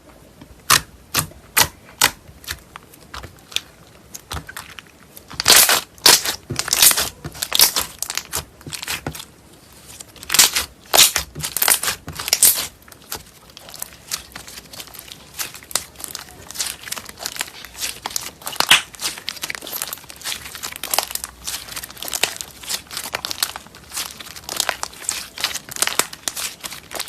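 Slime being squeezed and worked by hand: a long run of sharp pops and crackles at uneven spacing, with denser flurries about five to seven seconds in and again around ten to twelve seconds in.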